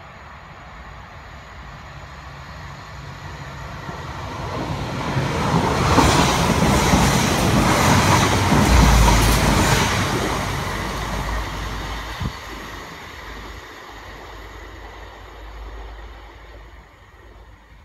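A London Midland diesel multiple-unit passenger train passes through the station without stopping. Its rumble grows over several seconds, is loudest as the carriages go by, then fades as it runs away down the line, with one sharp click partway through the fade.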